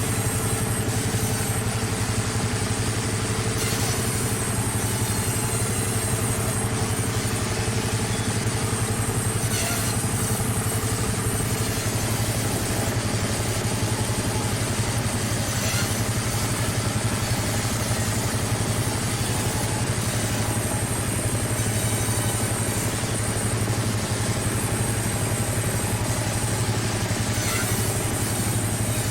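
Plywood cutting machine running steadily with a constant low hum, with a few faint brief sounds spaced several seconds apart.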